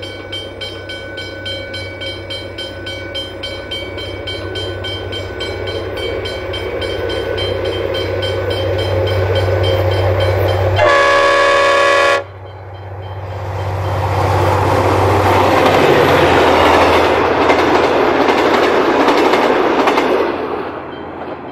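Diesel locomotive approaching, its engine note growing steadily louder. About eleven seconds in it sounds one horn blast of just over a second that cuts off sharply. The train then passes close by, and the noise of wheels on the rails swells and then fades near the end.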